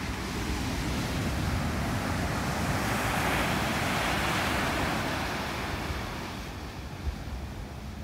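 Ocean surf breaking and washing up a sand beach, one wave's wash swelling to a peak about halfway through and then fading.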